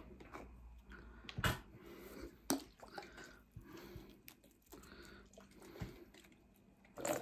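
Plastic vinegar bottle handled and shaken over a plate of chips. A few sharp clicks and knocks stand out, the loudest about a second and a half in, at two and a half seconds, and near the end, with soft handling and mouth noises in between.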